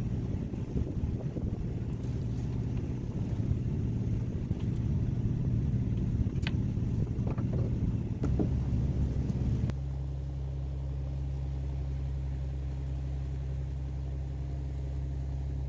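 Fishing boat's engine running with a loud, low rumble. About ten seconds in it cuts over abruptly to a steadier, even drone.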